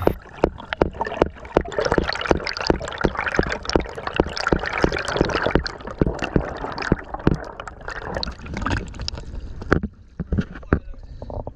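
Underwater camera audio of a diver swimming: a hazy wash of water noise with a run of sharp clicks, about three a second, that thin out and quieten about ten seconds in.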